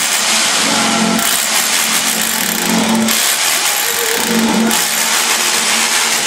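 Corded rotary hammer drill boring into a plastered wall: a loud, steady grinding hammer, its sound shifting a few times as the drill works.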